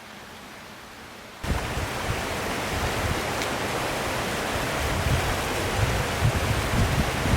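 A faint steady hiss, then about a second and a half in the sound jumps suddenly to the loud, steady rush of a waterfall, with an uneven low rumble under it.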